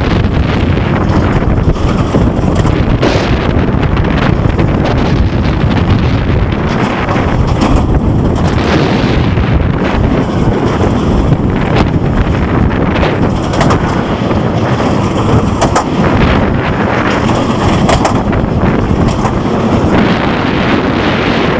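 Wind buffeting the microphone at speed on a roller coaster ride: a loud, steady rush with no let-up.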